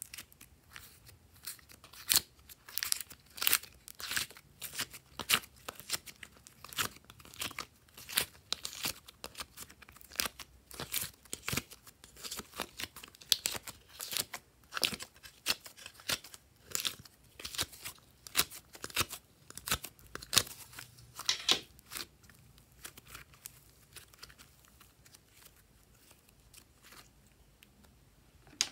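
Flexible plastic slime tray crackling and clicking as it is bent and squeezed to press slime out of its compartments. The sharp crackles come quickly and irregularly, then thin out about twenty seconds in.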